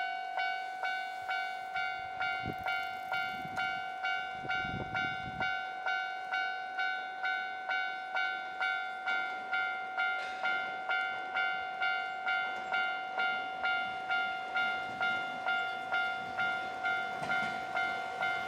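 Japanese railway level-crossing warning bell ringing steadily, about two strokes a second, signalling that a train is approaching.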